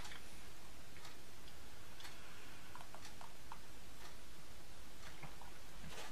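Faint ticking about once a second over steady room noise, with a few small clinks about three seconds in.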